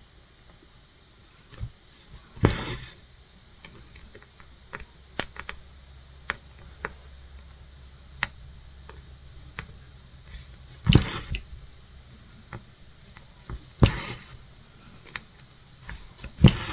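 Scattered light clicks and taps from hand cross stitching and handling the project, with four louder knocks spread through.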